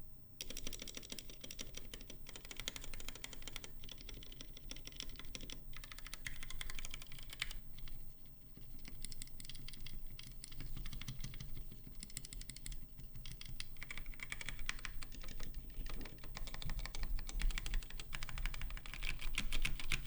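Rapid clacking keystrokes on a Skyloong GK64S aluminium-cased mechanical keyboard with Gateron red linear switches and DSA keycaps, in a sound test of its stabilized keys. The presses come fast and continuous, with short pauses near the start and about eight seconds in.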